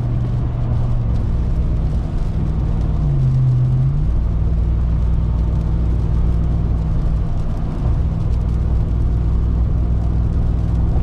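The 2021 Ram 1500 TRX's supercharged 6.2-litre Hemi V8 running while the truck drives, a steady low engine hum whose pitch dips and climbs back about three seconds in, then holds steady.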